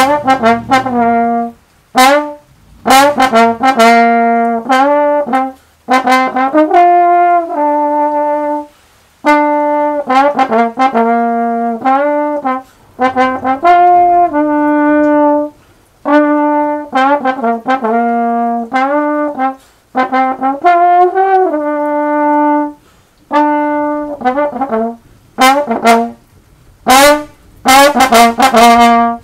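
Slide trombone played solo: a melody in phrases of held and moving notes with short breaks between them, turning to a run of quick, short notes near the end.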